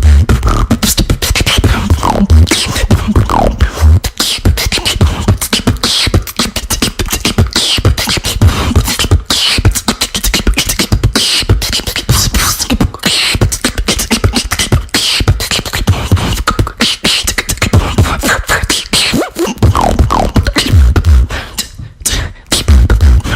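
Solo human beatboxing: rapid vocal percussion of bass kicks, snare and hi-hat sounds, with short sliding pitched vocal sweeps over the beat. The beat breaks off briefly near the end, then comes back in with heavy bass.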